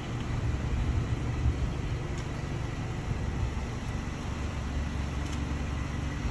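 Steady low rumble of vehicle traffic, with wind buffeting the microphone, and a faint steady high tone.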